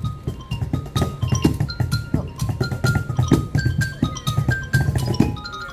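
Upbeat percussion music: quick drum hits with short, high pitched notes stepping up and down over them.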